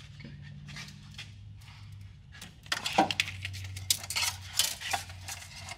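Steel long tube header and bolts clinking and knocking against the engine as the header is held up and fitted to the cylinder head: a run of sharp metallic clinks in the second half, over a steady low hum.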